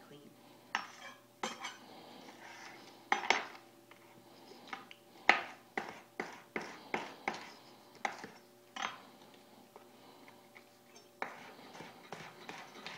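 Chef's knife chopping an Anaheim pepper on a plastic cutting board: irregular sharp knocks of the blade striking the board, one or two a second. The loudest knock comes a little past five seconds in, and there is a short lull later on.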